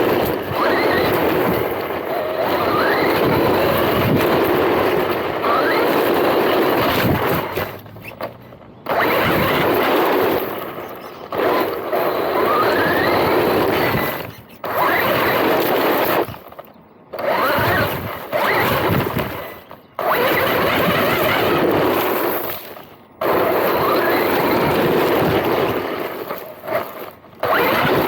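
MJX Hyper Go 16212 1/16 brushless RC car running in bursts: a loud, noisy motor whine with pitch rising on the throttle, cutting off briefly several times between runs.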